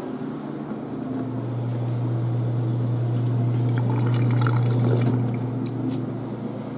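Stainless steel wall-mounted drinking fountain running: a stream of water splashing into the metal basin, with a steady low hum from the unit that starts about a second in and stops near the end.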